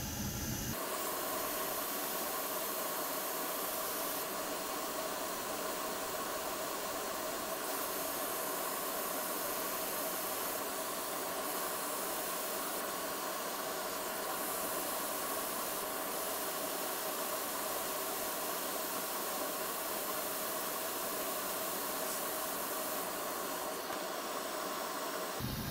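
Hot air rework station blowing: a steady hiss with a faint whine, as capacitors are reflowed onto the graphics card board. It starts abruptly just under a second in and stops just before the end.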